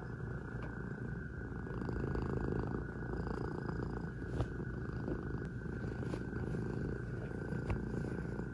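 Orange tabby Scottish Straight cat purring close to the microphone, a steady low rumble, while he kneads and suckles on a blanket as he settles to sleep. A few soft clicks sound over the purr.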